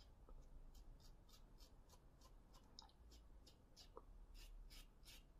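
Double-edge safety razor scraping through lathered stubble in short, faint strokes, about three a second.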